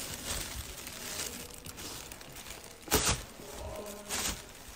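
Handling noise from a phone held against clothing: a jacket rubbing and rustling on the microphone as the holder moves, with one sharp knock about three seconds in.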